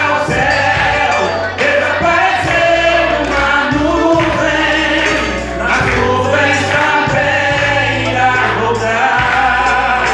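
A man singing a Portuguese-language gospel song into a microphone over musical accompaniment with steady low bass notes.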